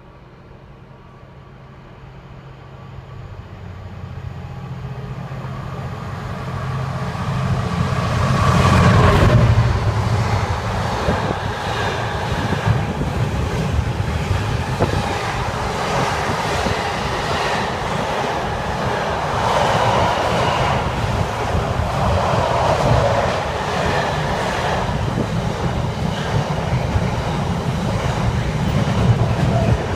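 A Class 66 diesel freight locomotive, with a two-stroke V12 engine, approaches with its engine note growing steadily louder. It passes at its loudest about nine seconds in, and a long train of container wagons follows, rumbling and clattering over the rails.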